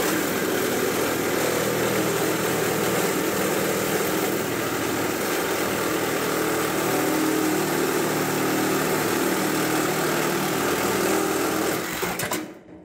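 Cordless reciprocating saw cutting through the go-kart's metal rear axle. It runs at a steady speed for about twelve seconds, then stops near the end.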